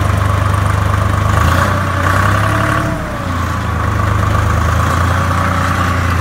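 Case IH 395 tractor's diesel engine running steadily, with a brief dip in level about three seconds in.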